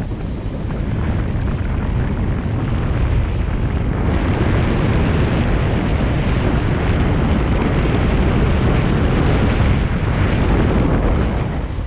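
A car being driven, heard through a car-mounted GoPro: a steady low rumble of wind and road noise, growing louder about four seconds in.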